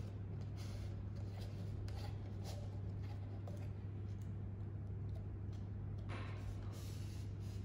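Faint rustling and crinkling of black paper being fitted inside a thin clear plastic cup, a little louder about six seconds in, over a steady low hum.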